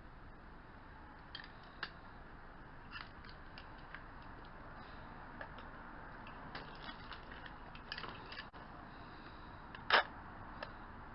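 Faint scattered clicks and knocks of small parts being handled, with one sharper clack about ten seconds in.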